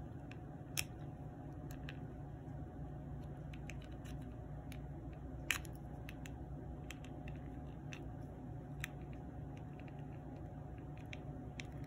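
Faint small clicks and taps as the plastic housing of a Toyota car key fob is pried at with a small tool. The sharpest clicks come about one, five and a half, and nine seconds in, over a steady low hum.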